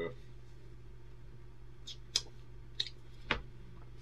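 Four short, sharp computer mouse clicks between about two and three and a half seconds in, over a low steady hum.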